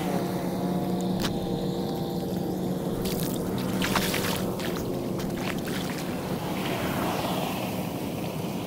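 Floodwater running and splashing along a flooded street gutter, with a steady low motor-like hum underneath and a few short splashes between about one and four seconds in.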